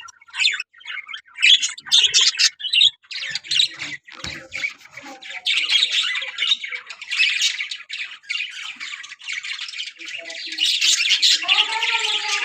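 A colony of budgerigars chattering and squawking, many birds calling at once in rapid high chirps. The calls are scattered at first and build into a nearly continuous din about five seconds in.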